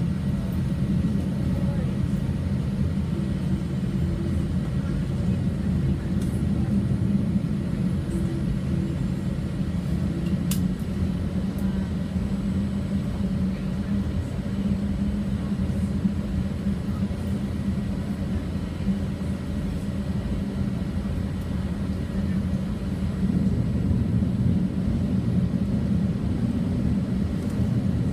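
Boeing 787-8 airliner's engines running with a steady low drone and rumble.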